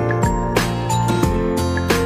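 Instrumental background music: held notes over a steady beat.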